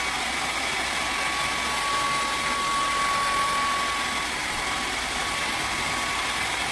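Handheld hair dryer running steadily on its high setting: a constant rush of blown air with a thin, steady motor whine.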